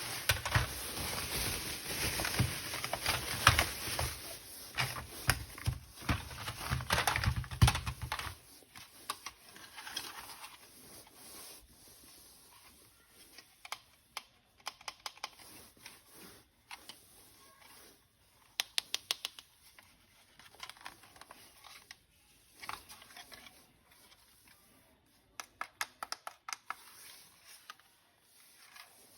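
Plastic toy weapon parts being handled. For about the first eight seconds there is dense clicking and rustling, then scattered sharp clicks and a few short, quick runs of clicks.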